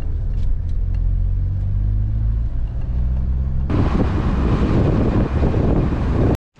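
Citroën car's engine running steadily, heard from inside the cabin. About three and a half seconds in it gives way to louder rushing wind and road noise as the car drives along.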